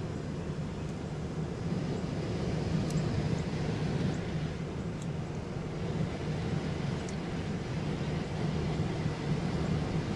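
Steady low drone of the 2008 Carrier heat-pump package unit's indoor blower running, with a few faint ticks over it; the condenser side is not running because a high-pressure switch has opened the control circuit.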